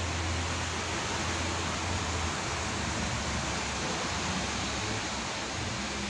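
Steady rushing hiss with a low hum beneath it, unchanging throughout.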